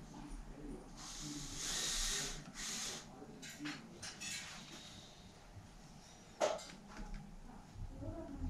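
Two short hisses, then light metallic clicks and one sharp click about six and a half seconds in, from hand work on a children's bicycle freewheel hub being reassembled.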